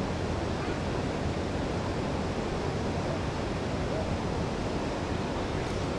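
Steady rushing of a mountain creek's flowing water, an even hiss with no breaks.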